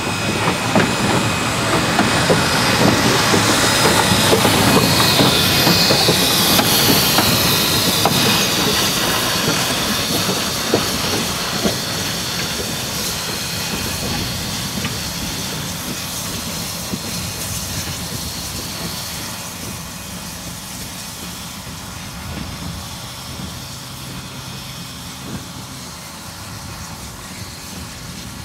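4-8-0 steam locomotive T251 moving slowly past at close range, steam hissing and wheels clicking over the rail joints. It grows steadily quieter over the second half as it draws away.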